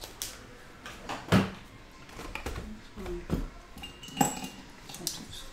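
Scattered knocks and clicks of small objects being handled and set down on a desk, the loudest knock about a second in, with a brief light clink near the end.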